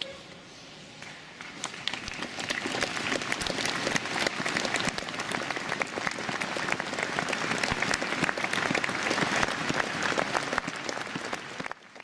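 A crowd applauding: many hands clapping build up over the first second or two, hold steady, and are cut off abruptly near the end.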